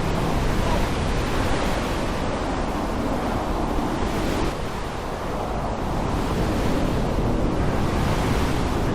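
Storm recording of rain and wind, a dense, steady rushing noise that eases briefly about halfway through and then swells back.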